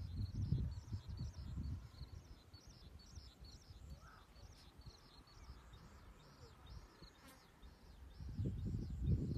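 Short high chirps repeating steadily, about three a second, from a small animal, most like an insect. Low rumbling fills the first two seconds and returns near the end.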